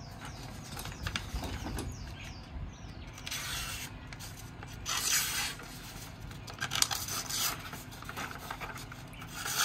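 A sheet of paper rustling and being sliced by a kukri's edge in several short scraping strokes, as a test of the blade's sharpness.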